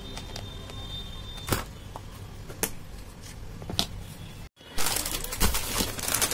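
A few light clicks of small plastic pots and cutters being set down on a table, then, after a brief break about four and a half seconds in, dense crinkling of a plastic packaging bag being handled.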